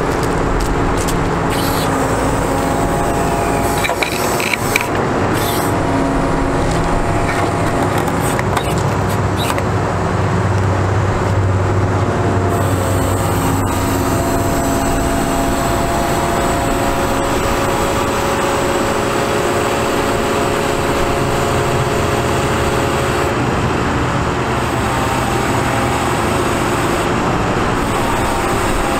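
Caterpillar C7 diesel engine of a truck running and driving the hydraulic system while the outriggers and knuckleboom crane are worked from the control levers. Steady running with several tones that shift in pitch now and then, and a couple of clicks about four seconds in.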